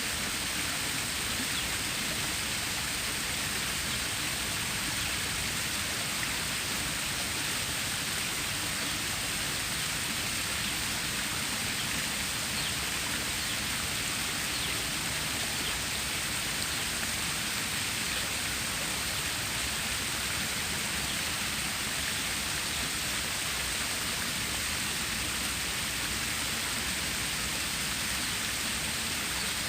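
Water stream running: a steady, even rushing hiss of flowing water that never lets up.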